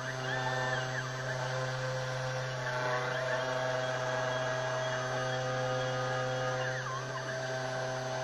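CNC 3040 desktop router cutting: a steady spindle hum with several fixed tones, and short whines that rise, hold and fall as the stepper motors move the cutter along its path.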